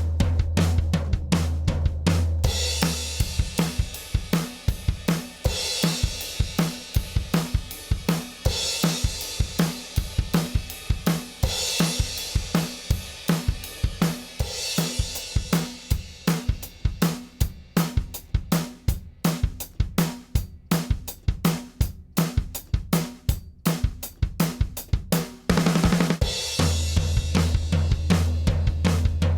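Recorded drum kit playing a steady groove of kick, snare and hi-hat, with cymbal crashes washing in every few seconds over the first half. A low held bass note sounds at the start and comes back near the end. The track is a demo of drums run through an 1176-style FET compressor.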